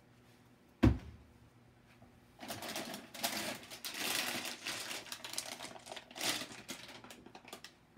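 A sharp knock about a second in, then several seconds of rustling and clattering as groceries are rummaged out of a plastic grocery bag.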